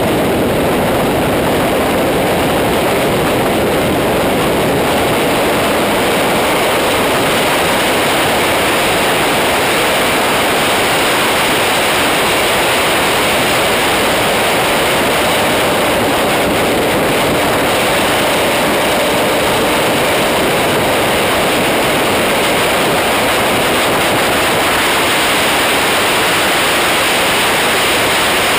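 Loud, steady wind rush over a camera mounted on a Kawasaki ZX-10R sport bike riding at high speed, with no distinct engine note standing out.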